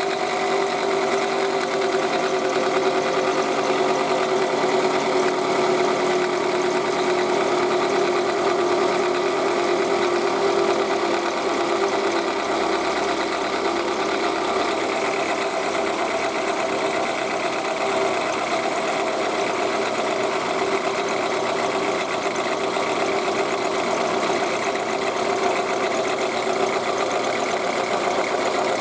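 Toyota Estima engine running in the engine bay with a steady mechanical grinding noise and a constant whine, the sound of a worn alternator bearing.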